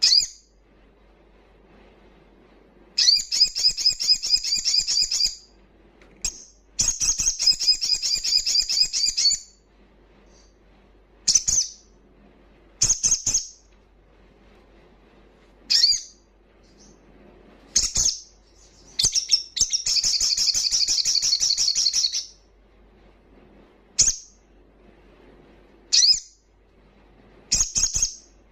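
Male olive-backed sunbird singing loudly in its wild, full-song style. Three long, fast trills of high repeated notes are broken up by short, sharp single calls.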